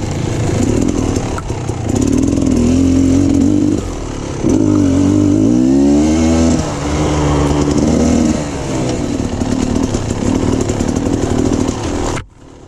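Beta Xtrainer 300 two-stroke dirt bike engine running on the trail, its pitch rising and falling as the throttle is worked, with a long rising rev in the middle. It cuts off suddenly near the end.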